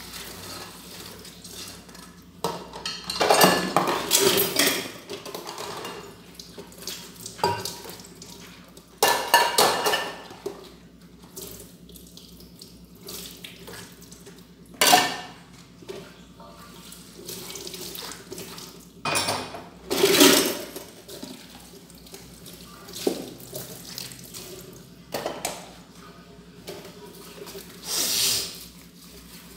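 Dishes being washed by hand at a kitchen sink: water running from the tap in spells, with repeated clinks and clatters of plates, pots and cutlery as they are scrubbed and set in a wire dish rack.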